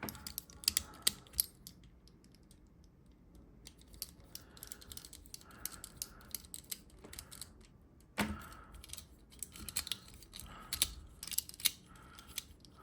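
Plastic toy parts clicking and tapping as they are handled and fitted back together, in scattered small clicks with a louder knock about 8 seconds in.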